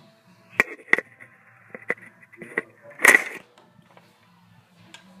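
A run of sharp clicks and knocks, about five in two seconds, then one louder clattering burst about three seconds in.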